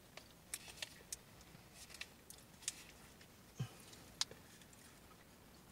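Faint crinkling and scattered light clicks of a Ritter Sport chocolate bar's paper wrapper being torn open and folded back.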